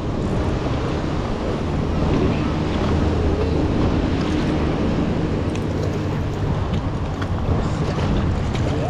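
Wind buffeting the microphone over moving river water at a stony shore, with a low steady hum underneath.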